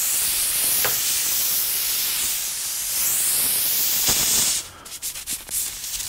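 Air rushing out of a pressurised truck tire through an open nail hole just after the nail is pulled: a steady hiss that cuts off suddenly about four and a half seconds in, followed by a few light clicks.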